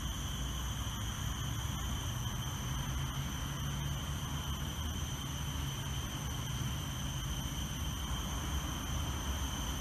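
Steady, high-pitched insect drone, like a chorus of cicadas or crickets, holding several unbroken tones over a hiss, with a low rumble beneath.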